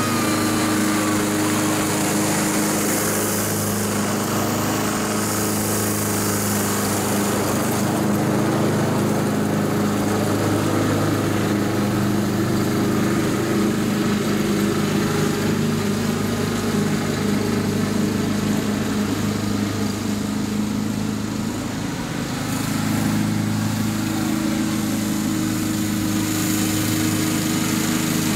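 Honda HRX217 walk-behind lawn mower's single-cylinder gas engine running steadily under load while mowing. It grows a little quieter around twenty seconds in, then comes back up.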